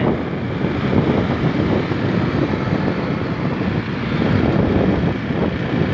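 Motorcycle riding at road speed: wind buffeting the microphone in a steady, churning rumble over the running engine.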